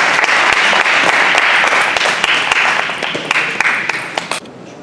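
Spectators applauding at the end of a table tennis rally: dense clapping that cuts off abruptly near the end.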